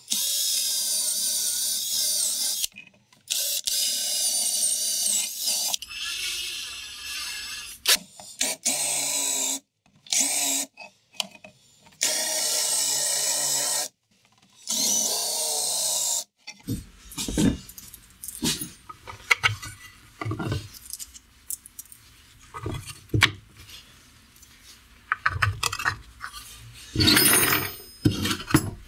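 Cordless drill boring holes through laminated chipboard, its motor whining in a series of runs of one to three seconds with short pauses between. After about the first half come irregular knocks and clatter of the board and bolts being handled on the workbench.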